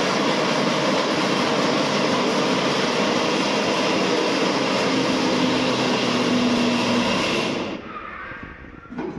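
Electric mixer grinder running steadily, grinding the baked dough into fine churma powder, then switched off sharply about eight seconds in.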